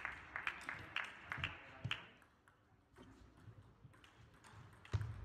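Table tennis rally: the ball clicking sharply off paddles and the table in quick succession for about two seconds, then the point ends. After that there are only a few faint taps and a single sharp knock near the end.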